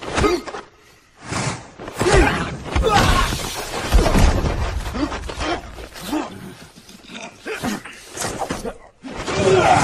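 A busy run of loud knocks and crashes, with short pitched sounds that rise and fall between them, and a brief lull about a second in.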